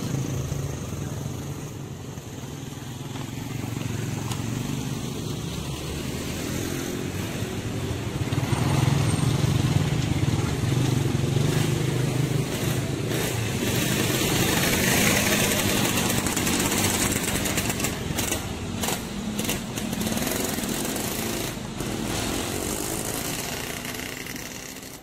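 Motor vehicle engines running steadily, with motorcycles crossing the rails and a low engine hum that swells a few seconds in. Several sharp knocks come near the end.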